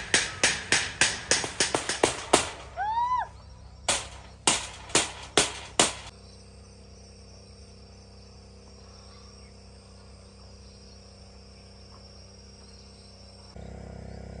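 Rapid bangs on a corrugated metal sheet, about three a second with a metallic ring, a bird-scaring clatter in a rice paddy; a short call with an arching pitch sounds in a pause near three seconds. From about six seconds the banging stops and a steady chorus of insects goes on alone.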